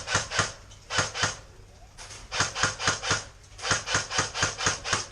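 Airsoft gun firing strings of rapid single shots, about four to five a second, in four short volleys.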